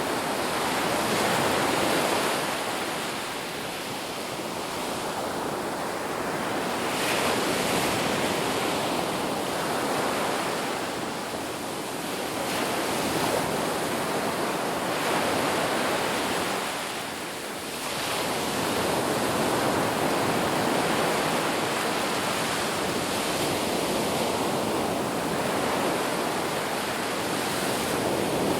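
Ocean surf: a steady wash of waves on a shore, swelling and easing every few seconds.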